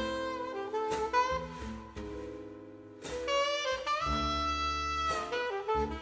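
Instrumental music: a lead melody with gliding notes over bass and drums, with no singing. It dips in level about two seconds in and swells back, with fuller bass, about four seconds in.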